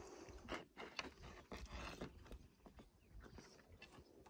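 Quiet eating sounds at a meal table: scattered faint clicks and soft knocks from handling a burger bun and chewing.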